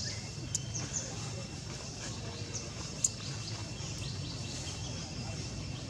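Outdoor ambience: many short, high chirping calls over a steady low hum, with one sharp click about three seconds in.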